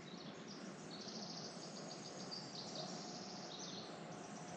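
Faint forest ambience with small birds chirping high, their calls coming and going.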